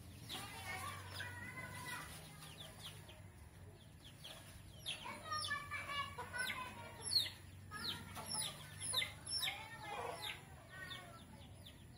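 Young chicks peeping again and again in short, falling chirps, thickest from about five seconds in, with some lower clucking among them.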